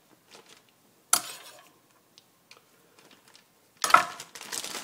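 Kitchen knife and cutting board clacking, with light clicks and one sharp clack about a second in, as chopped garlic is scraped up. Near the end, a louder rustle of the plastic marinade bag being handled.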